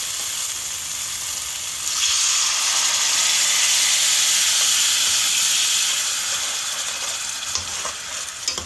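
Hot olive oil, garlic and pesto paste sizzling in a stainless steel pan. About two seconds in, water is poured in and the sizzle turns louder and brighter, then gradually dies down as the sauce bubbles. A few clicks of the spoon against the pan come near the end.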